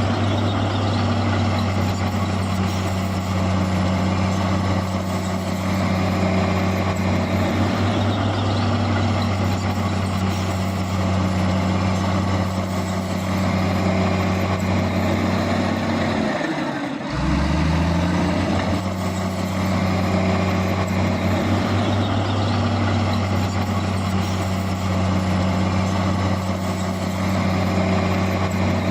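Heavy diesel engine of earthmoving machinery running steadily under load. About seventeen seconds in, its pitch sags briefly, then climbs back up.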